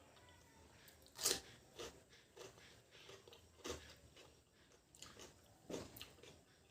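A person chewing food close to the microphone: faint wet chewing broken by short crunches and mouth clicks at uneven intervals, the loudest about a second in.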